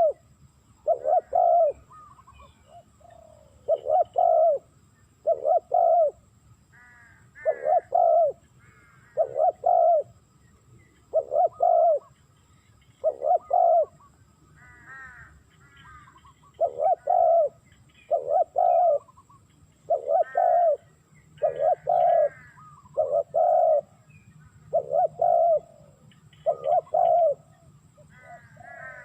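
Spotted dove cooing over and over, a steady run of low, mostly paired coos every second or two with a short pause midway, and faint higher chirping between the coos.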